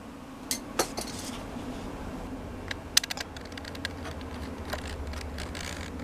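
A few light clicks and taps from a metal laptop hard-drive caddy being handled and lined up at the drive bay: a couple in the first second, a quick cluster about three seconds in and another near five seconds, over a steady low hum.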